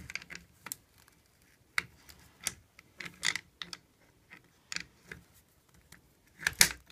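Scattered light metallic clicks and ticks from a small ratchet wrench and a second hand tool working the nut and bolt of a Bugaboo front-wheel swivel shaft, with a louder cluster of clicks near the end.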